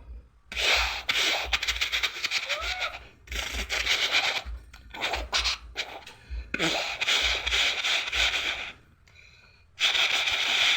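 A person making sound effects with his mouth: about five loud, breathy hissing bursts of a second or two each, with short gaps between them.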